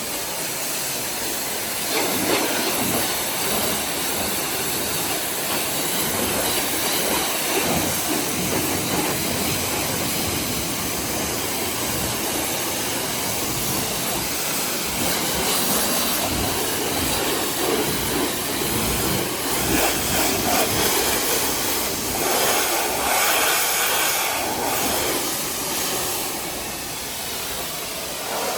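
A pressure washer's high-pressure water spray on a car, a steady hissing rush that swells louder for a few seconds near the end.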